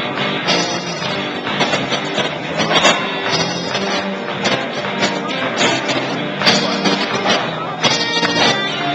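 Rock band playing live, with guitar prominent.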